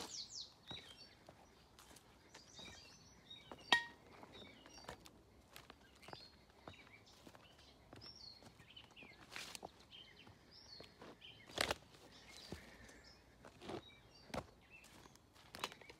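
Footsteps crunching over the ballast and old wooden ties of an overgrown rail bed, an irregular run of light steps and scuffs through brush with a sharper click a little under four seconds in. Faint bird chirps sound now and then.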